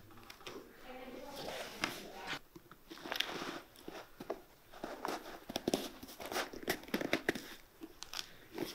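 Irregular crunching, crackling and clicking of a leather boot being gripped, flexed and worked by hand.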